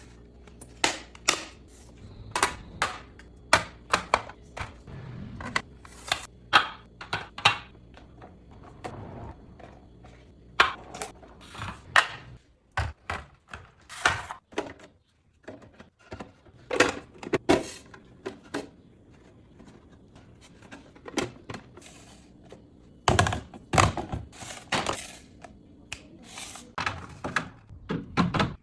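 Plastic fridge organizer bins and food containers being handled and set down, making irregular clacks and knocks, in clusters with a short pause about halfway through.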